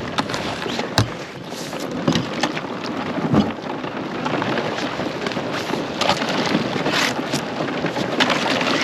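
A canoe being pushed and slid over thin ice and sticky snow toward open water: a continuous crunching, scraping noise, with sharp cracks of breaking ice about a second in and again around three and a half seconds.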